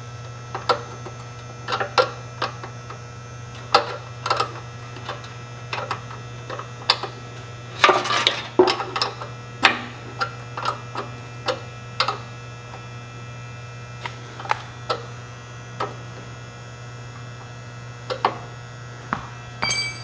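A wrench tightening the 7/16 bolt on a Troybilt tiller's clutch-cable bracket: irregular sharp metal clicks and taps, with a denser cluster about eight seconds in, over a steady low hum.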